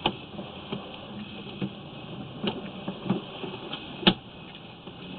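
A few scattered light knocks and clicks over a low steady hum, from the sewer inspection camera rig being pushed along the line, the loudest knock about four seconds in.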